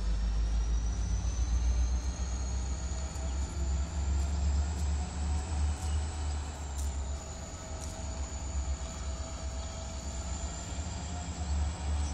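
Freight train rolling slowly past: a low rumble, with a thin high-pitched squeal that slowly rises in pitch and holds steady.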